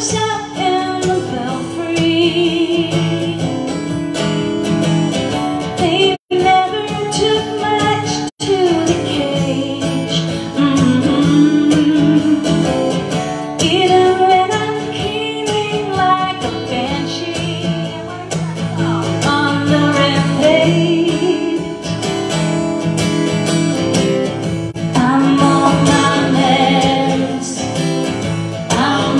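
Live acoustic guitars strummed and picked under a singing voice, a song performed on stage. The sound cuts out twice for an instant, about six and eight seconds in.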